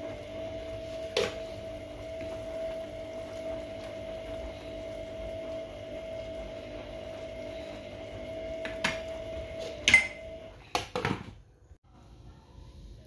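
A metal ladle stirring a pot of fish soup, clinking against the pot several times, loudest about ten seconds in, over a steady hum.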